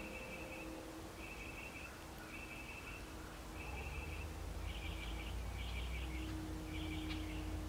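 A short buzzy trill repeated about once a second, about seven times, growing stronger about halfway through, over a steady low rumble.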